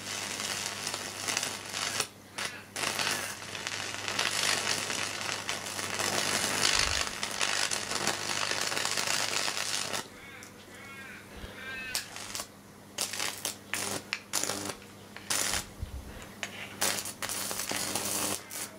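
High-voltage arc from a neon sign transformer crackling and sizzling as it burns across foil and a circuit board. The crackle runs dense and continuous at first. About ten seconds in it breaks up into irregular sharp cracks, over a steady electrical hum.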